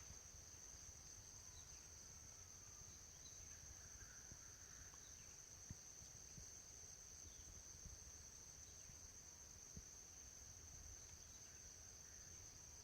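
Faint, steady high-pitched drone of forest insects, with a few faint isolated taps.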